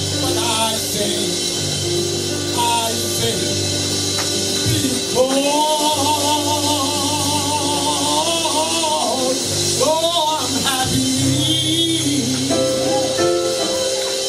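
A man singing through a microphone over a keyboard playing sustained chords, with a long held note with vibrato in the middle.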